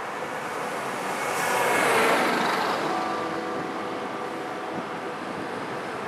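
Road traffic: a car passes close by, its tyre and engine noise swelling to a peak about two seconds in and fading away, over a steady street hum. From about three seconds a few faint held tones come in.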